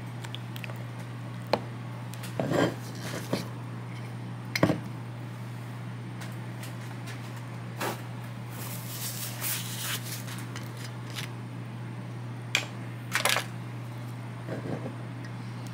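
Scattered clinks and knocks of kitchen utensils and containers being handled while olive oil is measured out by the tablespoon, over a steady low hum.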